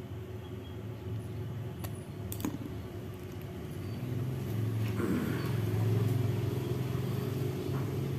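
Low steady engine hum of a motor vehicle, growing louder from about four seconds in and easing a little near the end. A few light clicks come about two seconds in.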